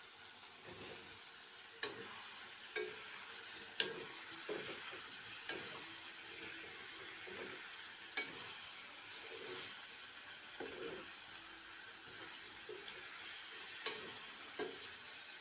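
Chicken and potato curry sizzling in a metal kadai while a spatula stirs it, with several sharp clacks as the spatula knocks against the pan.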